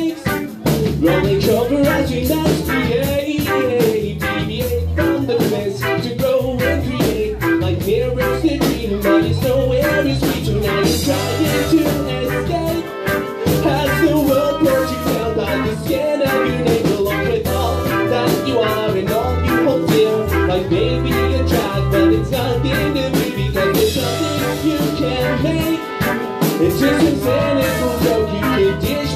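Live band playing a song: electric guitar, electric bass and drum kit, with trumpet and trombone playing horn lines.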